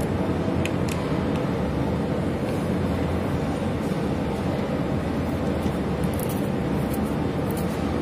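Steady background noise, with a few light clicks and scrapes of a screwdriver working the terminal screws on a plastic switch-and-socket board, about a second in and again near the end.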